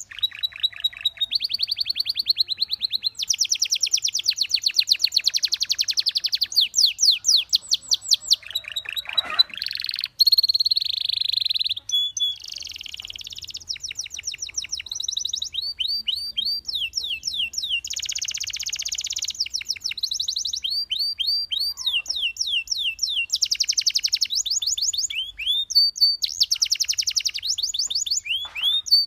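Canary singing a long, continuous song of rapid trills. Every second or two it switches to a new run of fast repeated notes, some rising sweeps and some dense rolls.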